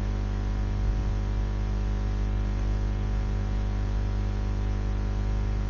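Steady electrical mains hum with a buzzy stack of overtones and a light hiss underneath, unchanging throughout: noise picked up by the recording chain.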